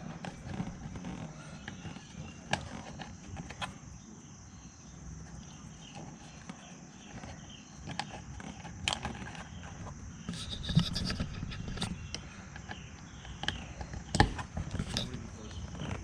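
A trim piece being worked into place on a BMW E39's inner door, with scraping and rubbing and a few sharp clicks and knocks scattered through. The loudest knock comes about fourteen seconds in, as the piece seats.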